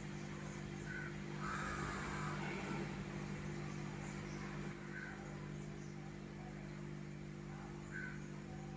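Low, steady electrical hum with faint room noise, and a few short, faint high chirps about one, five and eight seconds in.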